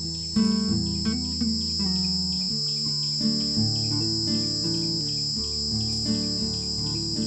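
Insects, crickets, trilling steadily in one unbroken high drone, over background music of a plucked-string melody with notes changing every half second or so.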